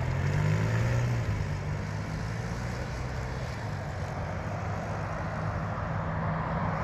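A motor vehicle's engine running with a steady low hum, over faint outdoor road noise.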